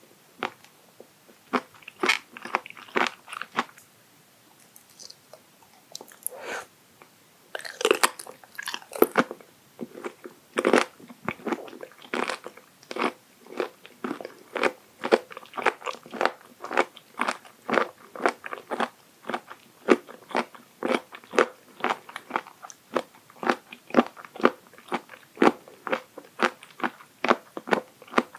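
Close-miked chewing of raw abalone sashimi: firm, crunchy bites in a steady rhythm of about two to three a second, with a short lull about four seconds in.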